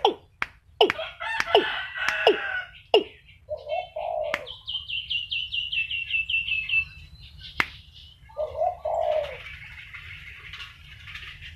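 Caged male watercock calling: three short, low-pitched calls, with sharp clicks in the first few seconds. From about four and a half seconds in, a fast series of high, falling notes runs for about two seconds.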